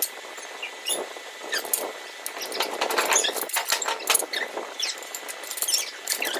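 Plastic packaging crinkling and squeaking as it is handled and pulled open: a dense, irregular run of sharp crackles with short squeaks, cutting off abruptly at the end.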